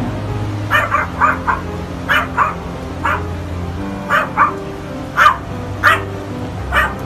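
A dog barking repeatedly, in quick twos and threes, over steady background music.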